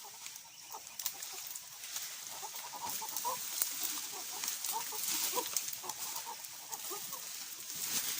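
Chickens clucking, with scattered short clicks and rustling.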